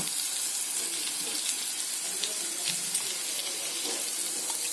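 Oil sizzling steadily in a kadai as a tempering of onions, green chillies and curry leaves fries, with a few light clicks.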